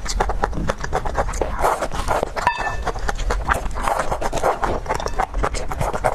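Close-miked mukbang eating: a rapid, steady run of wet chewing and mouth clicks as someone eats a dessert, with a brief break about two and a half seconds in.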